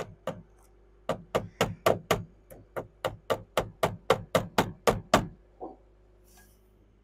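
Hammer blows on a wooden roof truss, a quick even run of about four strikes a second lasting about four seconds, driving a fastener into the wood.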